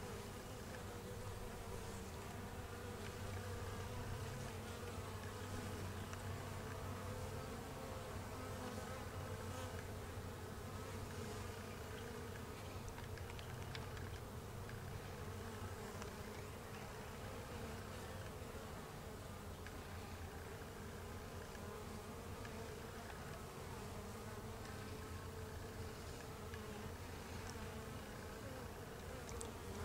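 Honeybees at a hive entrance, their buzzing a steady hum.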